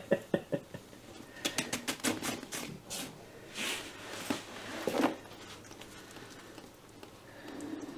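Hand-spun cake turntable carrying a paint-covered canvas inside a tub: a run of quick clicks dies away in the first half-second, then scattered clicks and a few short swishes follow.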